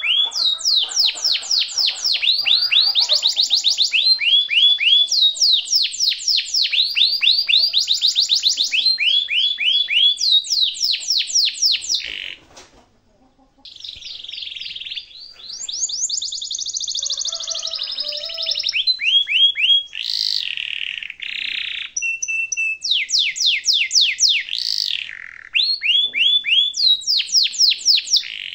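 Domestic canary singing loud, long rolls: fast trains of repeated high notes, each sweeping down in pitch. The song breaks off briefly about halfway, then goes on with varied whistled phrases and more rolls.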